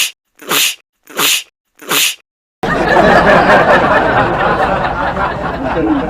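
Four quick sneezes in a row, each a short hissy burst about half a second apart. About two and a half seconds in, a loud dense rushing noise cuts in abruptly and lasts three to four seconds.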